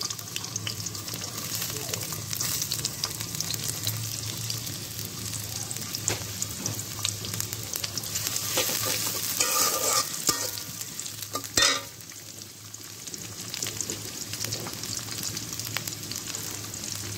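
Sliced onions and green chili strips sizzling as they fry in hot oil in a metal kadai, stirred with a metal spatula. A few louder scrapes of the spatula against the pan stand out, the sharpest about two-thirds of the way through.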